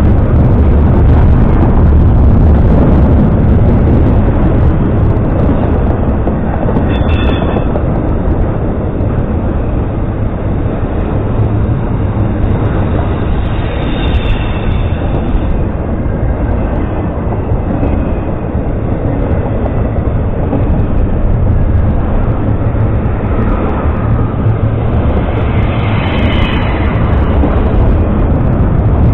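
Intermodal freight train rolling past close to the rails: a loud, steady rumble of steel wheels on track and rattling cars. Brief high squeals come about a quarter of the way in, near the middle, and near the end.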